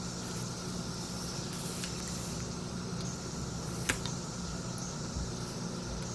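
Steady low hum with hiss, and one sharp click about four seconds in.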